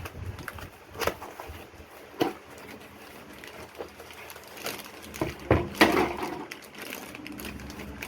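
Handling of a laptop battery and parts: a few separate sharp knocks and clicks, the loudest about six seconds in, with some rustling around it.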